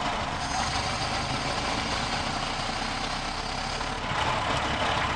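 1930 Ford Model A pickup's four-cylinder flathead engine running on the move, heard inside the cab together with road noise. It is steady and very noisy, with the carburetor open and no air cleaner fitted.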